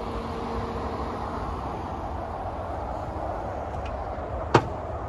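A steady outdoor rush with wind rumbling on the microphone, broken by one sharp click about four and a half seconds in.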